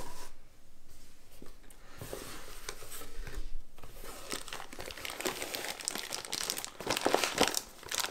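Thin plastic bag crinkling as hands rummage inside a soft lens pouch and pull out a lens hood wrapped in the plastic. The crinkling is sparse at first and gets busier after about two seconds.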